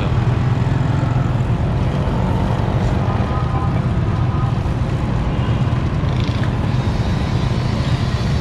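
Steady low hum of motorcycle engines running close by, with street traffic.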